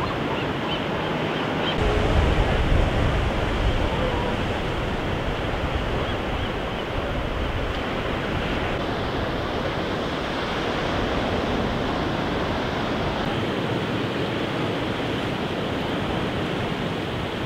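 Ocean surf breaking on rocks, a steady rush of waves, with a louder surge about two seconds in.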